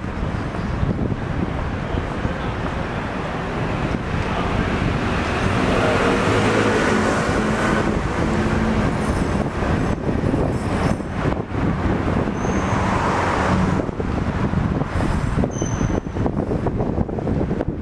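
City street traffic noise, with motor vehicles passing; one goes by loudly about six seconds in and another about twelve seconds in.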